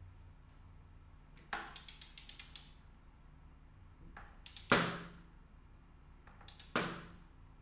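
Click-type torque wrench ratcheting on the CBX 1000 clutch basket spanner nut: a quick run of ratchet clicks about a second and a half in, then twice more a few clicks ending in one loud sharp click with a brief metallic ring.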